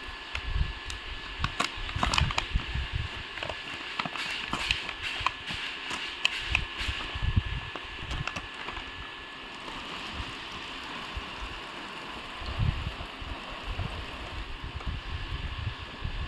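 Crackling and clicking of packaging being handled, densest in the first half, over a steady hiss and irregular low rumbles.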